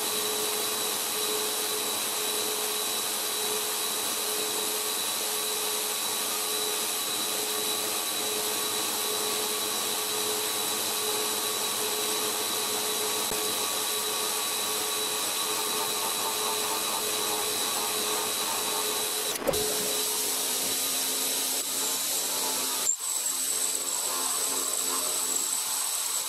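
CNC milling machine spindle running steadily as an end mill cuts aluminium in fine layers, with a steady whine over a noisy cutting hiss. The sound changes abruptly twice late on, and afterwards the whine sits at a different pitch as the cut moves to another operation.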